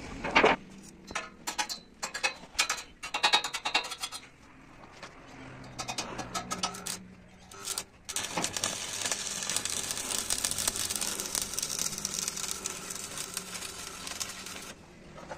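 Tools working on metal: a quick run of clicks and knocks, then a steady rough hissing, scraping noise for about six seconds that cuts off near the end.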